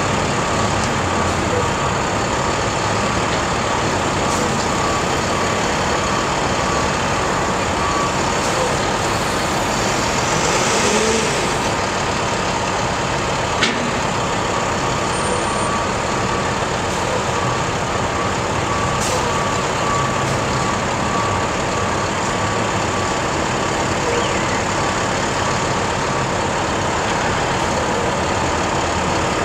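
Heavy tow truck engine running steadily, with a faint repeated beep sounding on and off. There is a brief hiss about ten seconds in.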